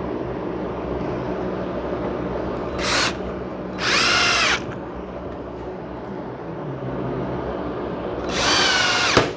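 Cordless drill driving screws in three short bursts, the last about a second long, its motor whine bending in pitch under load and winding down as it stops. A steady low background noise runs underneath.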